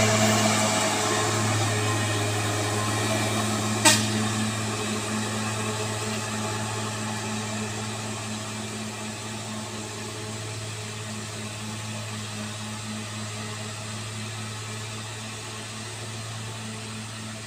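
Mitsubishi Colt Diesel truck's diesel engine running steadily under heavy load up a steep climb while towing an overloaded Isuzu Traga. The drone fades slowly as the truck pulls away. A single sharp click comes about four seconds in.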